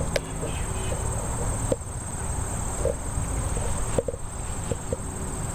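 Steady, high-pitched insect chorus in a garden, with a low rumble and a few scattered soft taps underneath.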